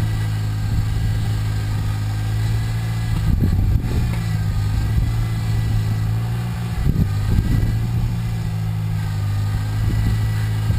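A small engine idling steadily with a constant low hum.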